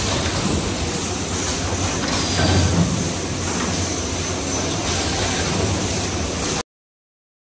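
Corrugated-paper cupcake-mould forming machine running: steady mechanical noise over a low hum, cutting off suddenly near the end.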